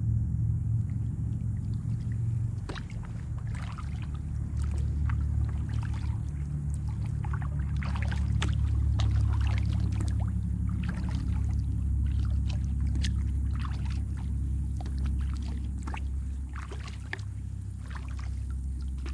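Kayak paddling on calm water: irregular splashes and drips as the paddle blade dips and water runs off it, over a steady low rumble.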